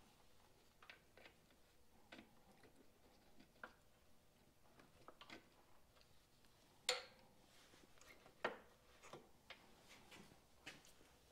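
Near silence broken by faint, scattered clicks and taps of small metal parts being handled, with two sharper metallic clicks about seven and eight and a half seconds in, as an aluminium lever is worked onto a splined shaft on a 1973 Suzuki TC125 engine.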